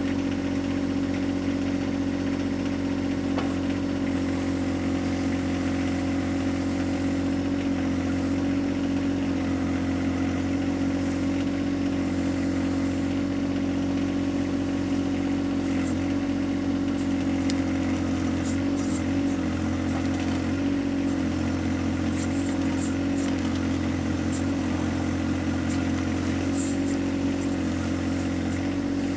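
John Deere 1025R compact tractor's three-cylinder diesel engine running steadily while it powers the backhoe, with scattered brief clicks and knocks over it.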